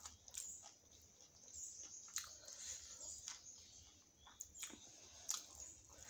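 Close-up mouth sounds of someone chewing soft steamed veg paneer momos: quiet, wet smacks and clicks at irregular intervals.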